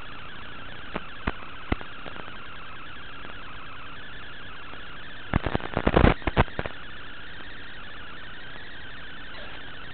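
Micro FPV drone's motors whining steadily as picked up by its onboard camera, with three sharp ticks about a second in and a rapid cluster of loud clicks around six seconds in.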